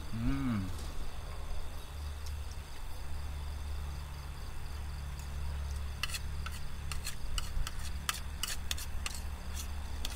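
A spoon clicking and scraping against a plate during eating, in a quick irregular run of clicks from about six seconds in, over a steady low hum. A brief voice-like sound that rises and falls comes just after the start.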